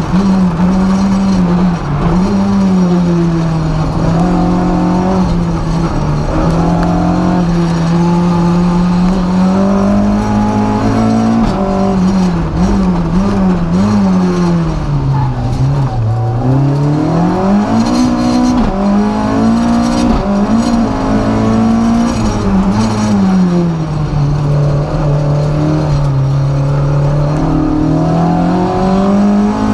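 Renault Clio F2000 rally car's naturally aspirated 2-litre four-cylinder engine, heard from inside the cabin, driven hard on a stage. The revs climb and drop through gear changes and braking, falling lowest about halfway through before pulling hard again.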